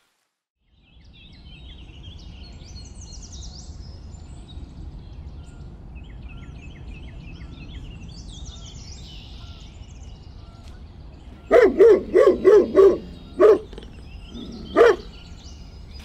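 Birds chirping over a low steady rumble of outdoor air, then a dog barking: a quick run of short barks, with one last bark near the end.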